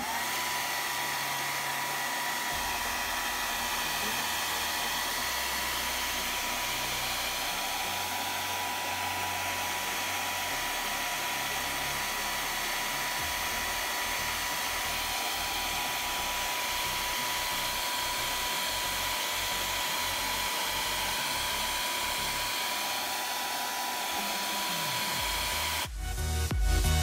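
Nova 1400 W mini hair dryer running steadily on its second speed: an even rush of blown air with a thin steady whine. It cuts off near the end.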